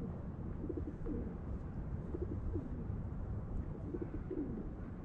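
Pigeons cooing: several short, low coos in small groups, over a steady low rumble of wind on the microphone.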